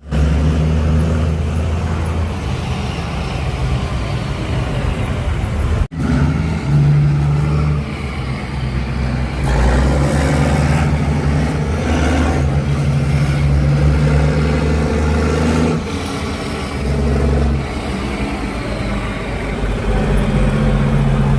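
Heavy diesel truck engine running at low revs, a deep steady drone that drops out for an instant about six seconds in.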